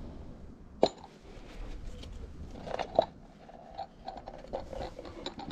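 Handling noises: faint rustling and scraping, with two sharp knocks about a second in and about three seconds in, as a small camp oven is lifted with a towel and set down on a wooden board.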